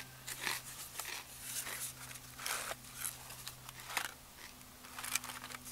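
Close-up chewing and mouth sounds of someone eating: a string of irregular smacks and crunches every third to half second, over a steady low hum.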